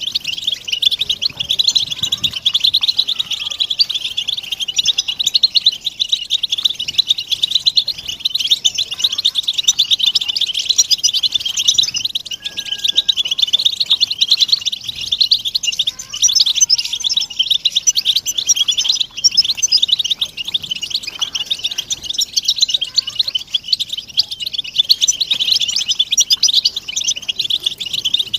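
A flock of European goldfinches twittering together: a dense, continuous chorus of high chattering and contact calls, the group calling that goldfinch keepers play to stir males into song.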